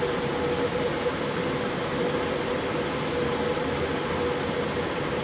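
Ceiling fan running: a steady rushing hum with one constant tone through it.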